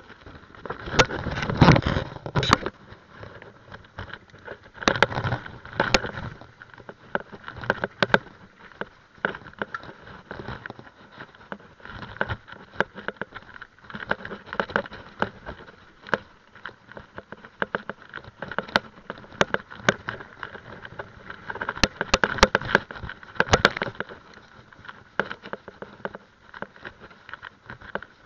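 Mountain bike ridden over a bumpy dirt forest trail, heard from a handlebar-mounted camera: tyres on dirt with the bike and mount rattling and knocking over the bumps. The rattling grows louder over rougher stretches about a second in, around five seconds in and again about three-quarters of the way through.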